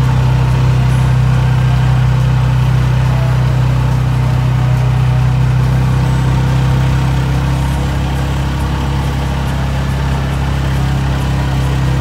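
Arctic Cat's engine running at a steady low drone as the machine pushes snow down a driveway with its front plow blade.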